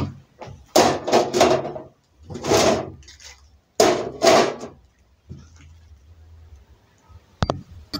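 Metal pan supports of a two-burner gas stove clattering against the stovetop as they are set on the burners, in three bursts about a second and a half apart, then a single sharp click near the end.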